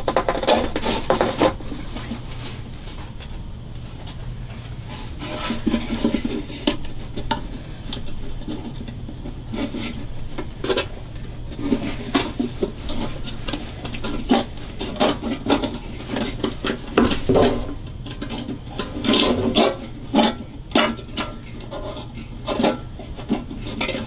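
A wooden guitar neck being worked back and forth and pulled out of a vintage Dobro's steel body: irregular scraping and rubbing, with knocks of wood against metal.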